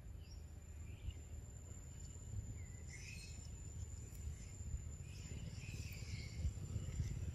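Faint outdoor forest ambience: a steady high-pitched insect drone, scattered faint chirps in clusters a few seconds in and again near the end, over a low rumble.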